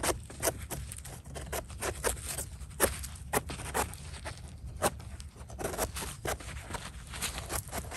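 A small knife blade scraping soil and debris off the stem of a bolete mushroom, in a run of short, irregular strokes close to the microphone.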